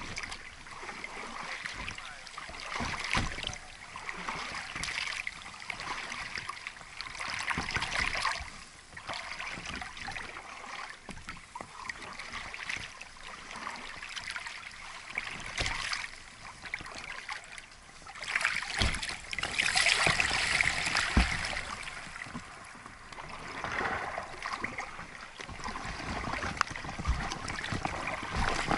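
Water splashing and swishing as a small children's boat is paddled with plastic oars, the splashing swelling with each stroke every few seconds and loudest about two-thirds of the way through.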